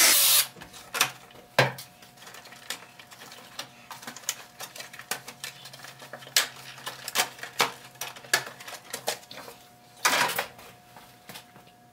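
A DeWalt cordless impact driver runs briefly at the very start. Then come irregular plastic clicks and taps as the RC truck's body shell is worked loose and lifted off the chassis, with a louder scrape about ten seconds in.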